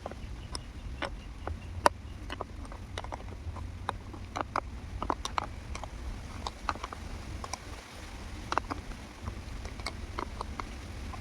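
Scattered light clicks and knocks, irregular and a few a second, over a steady low rumble.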